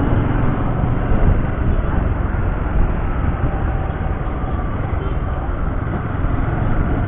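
Steady wind rush and rumble on a helmet-mounted microphone, with a Rouser 135 motorcycle's engine running underneath as it rides slowly in traffic.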